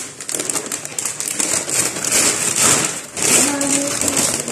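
Paper takeout bag rustling and crinkling as hands rummage inside it and shift paper fry cartons, a dense run of crackles throughout.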